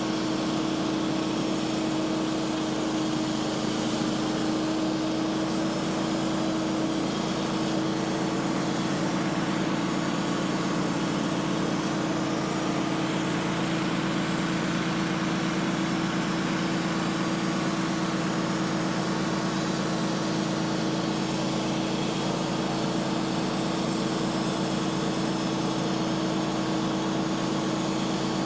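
Wood-Mizer portable band sawmill's engine running steadily, an even hum that holds one pitch throughout.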